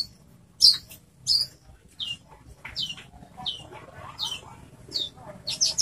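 Caged Horsfield's bush lark (branjangan) calling loudly: a steady series of sharp, high chirps, each sweeping downward, about three every two seconds, breaking into a quick run of notes near the end.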